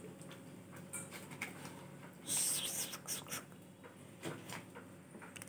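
Plastic soda bottle being handled on a table, with a few light knocks and rustles and one short hiss about two seconds in.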